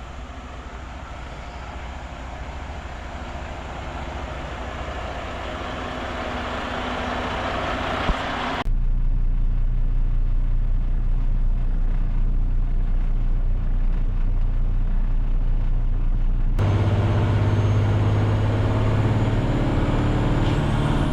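Heavy diesel tractor-trailer engine running, heard across several abrupt cuts. First it grows steadily louder, then it settles into a steady low drone.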